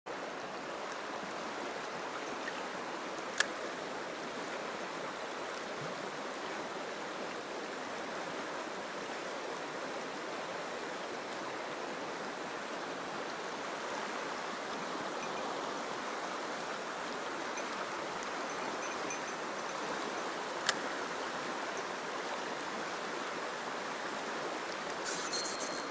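Mountain stream rushing steadily, with two sharp clicks, one about three seconds in and one about twenty-one seconds in.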